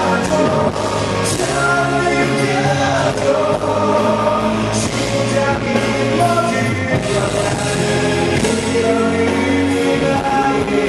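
Male singer singing live into a handheld microphone over instrumental accompaniment.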